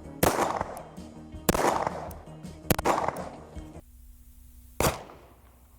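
9mm pistol bullets striking dirt: four sharp impacts, each with a short tail. The first three come about a second and a quarter apart, and the fourth follows after a longer pause.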